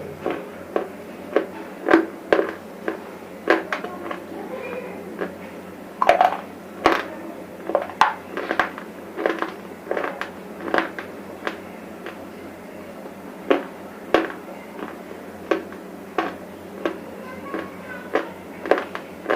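Close-up crunching of brittle bar pieces being bitten and chewed: sharp crunches about once or twice a second, with a short lull past the middle.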